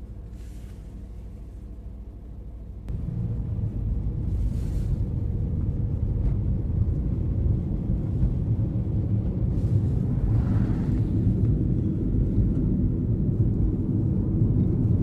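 Car in motion heard from inside the cabin: a steady low rumble of engine and road noise that jumps louder about three seconds in and stays loud, with a brief hiss about ten seconds in.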